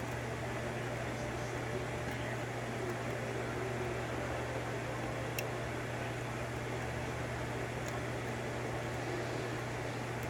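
Steady machine hum and hiss, like a fan running, with a few faint light clicks.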